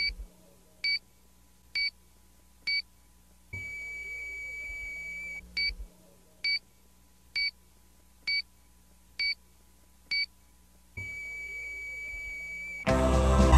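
Hospital heart monitor beeping: short, high beeps a little faster than one a second, which twice run into a long, unbroken tone of about two seconds (the flatline tone of a monitor showing no heartbeat). Loud music comes in near the end.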